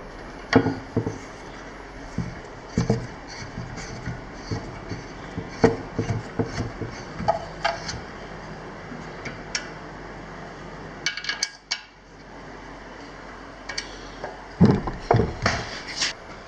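Small tools and parts being handled on a workbench: scattered clinks, taps and knocks at irregular intervals, with a busier cluster near the end, over a steady background hum.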